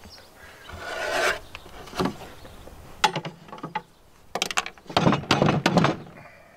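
A metal square and hands scraping and knocking against a plywood cabinet's shelves and sides. There are a few sharp knocks about three seconds in, and a denser run of scrapes and knocks near the end.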